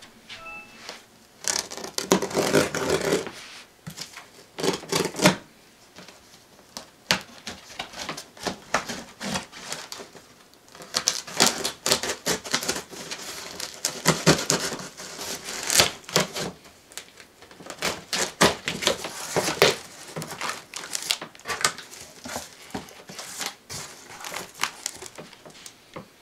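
A cardboard shipping box being opened by hand: packing tape slit with a small blade and torn, with cardboard flaps scraping and rustling. It comes in irregular clusters of short scrapes and clicks.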